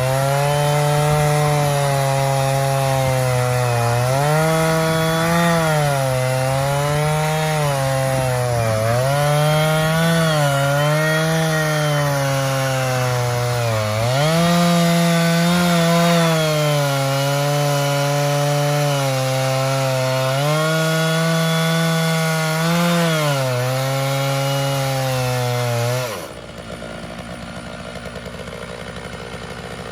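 Stihl 660 Magnum chainsaw in an Alaskan chainsaw mill ripping along a log at high revs, its pitch sagging and recovering every few seconds as it bogs in the cut. The cut is slow, which the sawyers put down to a chain damaged earlier in the log. About 26 s in, the engine note drops away for a few seconds and then comes back up.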